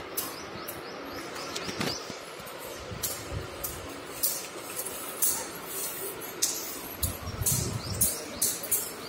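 A crawling baby's palms slapping on a smooth tiled floor, with the bangles on the wrists clinking, in an irregular series of light taps that come more often from about three seconds in. A short high rising squeal sounds about two seconds in.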